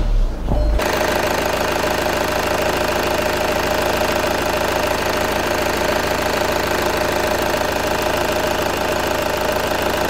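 Volkswagen Jetta TDI turbodiesel engine held at raised revs, running steadily with a rapid diesel clatter, from about a second in. It is being revved for an exhaust back-pressure test of the diesel particulate filter.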